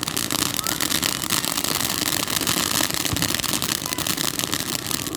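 Loud, dense, rapid crackling of a crackling firework, a continuous fizz of many small pops.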